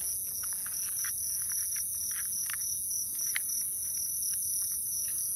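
Steady, high-pitched chorus of night insects, with a few faint clicks scattered through it.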